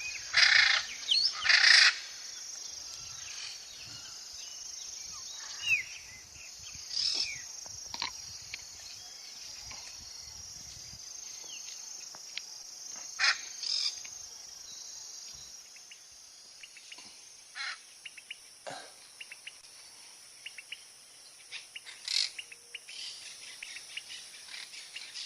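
Wild birds calling: a pair of loud calls near the start, then scattered single calls and quick chirps through the rest. These come over a steady high-pitched drone of insects.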